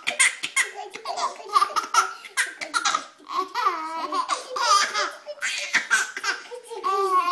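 Baby laughing hard in a long run of short, high-pitched bursts.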